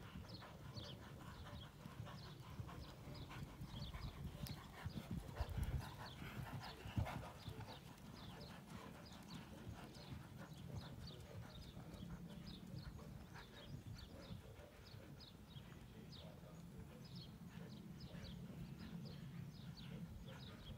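Horse being ridden around a sand arena, its hoofbeats faint and distant. Repeated short high chirps run throughout over a low rumble, with a few louder thumps about four to seven seconds in.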